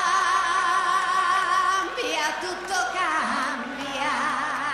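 A woman singing solo: a long held note with strong vibrato, then several shorter wavering notes that slide down in pitch near the end.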